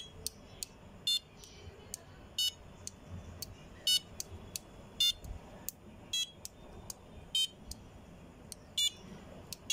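The piezo buzzer on a Maker Board 2.0 sounding short, high-pitched beeps, about one every second or so, as its buttons are held down to play the Sa Re Ga Ma notes.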